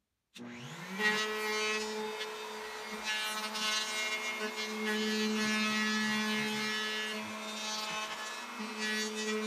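Electric router with a 1/4-inch roundover bit starting up about a third of a second in, rising to speed within about a second, then running steadily as the bit cuts a roundover along a wooden edge.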